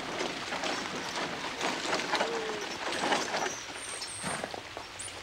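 Several horses' hooves clopping on a gravel road, with the rolling rattle of a horse-drawn stagecoach alongside them.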